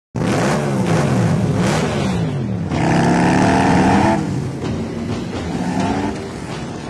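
Several motorcycle engines revving, their pitches climbing and falling across one another, then one held at a steady high rev for about a second and a half before the sound eases off.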